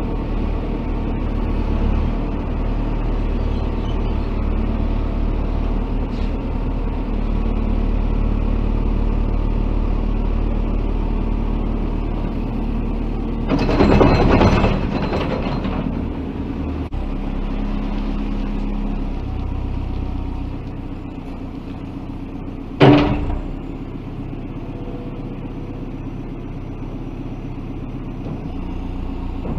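Diesel earth-moving machinery running steadily at work. About halfway through there is a loud, noisy burst lasting a couple of seconds, and a little past three quarters through there is one sharp bang, the loudest moment.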